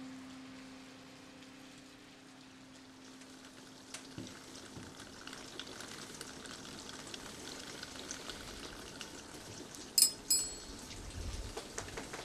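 Steady patter of rain, with a low held music note fading out over the first few seconds. About ten seconds in, two sharp, ringing clinks of tableware at the dinner table.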